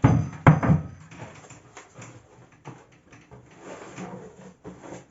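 Kitchenware being handled: two solid knocks near the start, then lighter knocks and rustling as dishes are moved about.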